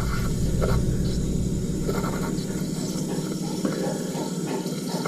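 Toilet tank fill valve hissing steadily as it refills the tank: the float has dropped because water is leaking past the flush valve seal, so the toilet calls for water on its own.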